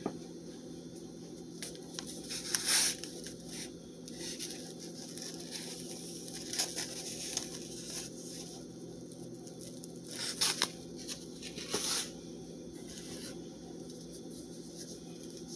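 Brief paper and cardboard rustles and crinkles from a small paperboard box being handled and opened, four or five short bursts over a steady low hum.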